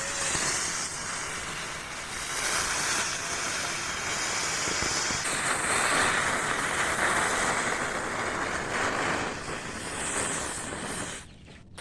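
Crackling firework burning with a steady hissing, crackling spray of sparks that rises and falls in strength, then cuts off suddenly about eleven seconds in.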